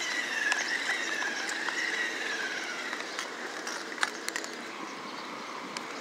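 Electric motor and gears of a toy RC side-by-side whining as it drives, the pitch rising and falling with its speed and fading away about halfway through. A few light clicks.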